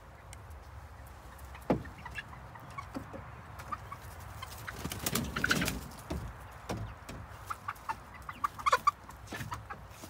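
A flock of young red pullets, about eight weeks old, clucking and peeping in short, scattered calls, busiest about halfway through and again near the end.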